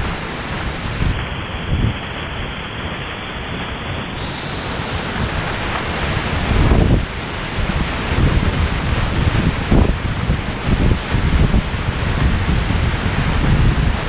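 Waterfall close by: a loud, steady rush of falling water and spray. From about seven seconds in, uneven gusts of buffeting on the microphone come over the rush.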